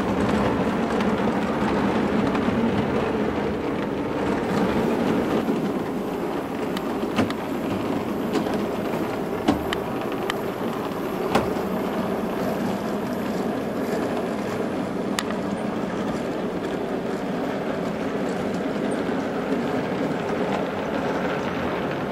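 O scale (7mm) model freight train running on two-rail track: a steady rolling rumble of wheels and locomotive motor, with a few sharp clicks along the way.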